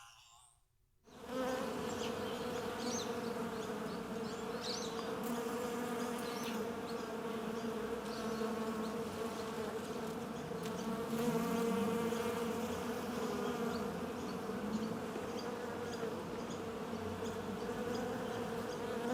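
Swarm of flies buzzing, a steady, slightly wavering drone of several wingbeat tones that starts about a second in after a short silence.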